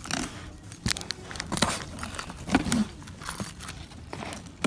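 A key scraping along and slitting the packing tape on a cardboard box, in short irregular scratches and clicks, with the keyring jangling.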